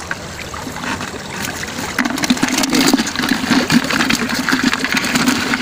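Freshly caught fish flapping in a plastic bucket of water and crabs: a rapid rattling buzz against the bucket from about two seconds in.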